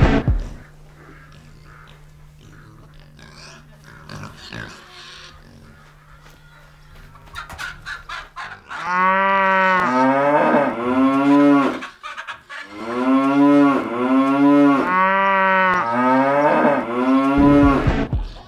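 A run of a dozen or so loud, short mooing calls in two bursts, starting about nine seconds in, each a pitched arched call about half a second long.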